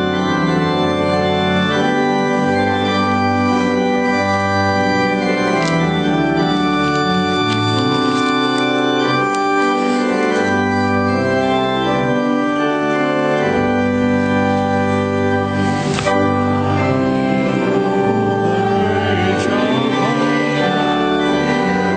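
Church organ playing slow, sustained chords that change every second or two.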